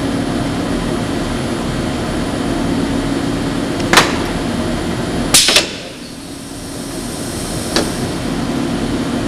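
Steady machine hum from the robot work cell, broken by sharp clacks from the assembly press squeezing the wooden CD rack pieces together: one about four seconds in, a double clack a second and a half later after which the hum dips and slowly returns, and a lighter click near the end.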